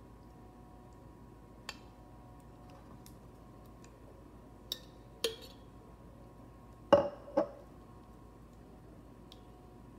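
A metal spoon tapping and clinking against a glass casserole dish while tomato sauce is spread over lasagna noodles: a few scattered light taps, then two louder ringing clinks close together about seven seconds in.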